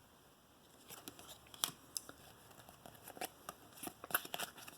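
Trading cards being handled: faint rustling and a scatter of small clicks and flicks as cards are slid and turned over in the hand.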